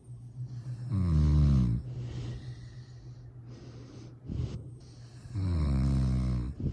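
Snoring while asleep: two long, loud snores about four seconds apart, each lasting just under a second and a half, with a shorter, softer breath between them.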